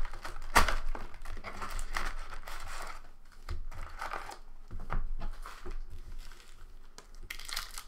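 Foil-wrapped trading card packs crinkling and rustling as they are pulled out of a cardboard box and stacked, with cardboard scraping and an irregular run of small clicks and taps, the sharpest about half a second in.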